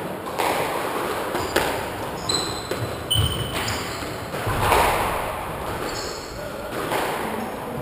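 Several thuds of a squash ball and players' steps on the wooden court floor, with short high shoe squeaks on the boards.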